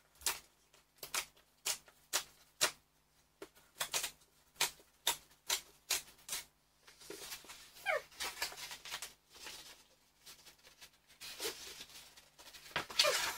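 A book's packaging being torn open by hand: a run of sharp rips and cracks of cardboard and tape, one to two a second, with a few squeaky tearing sweeps and the loudest rips near the end.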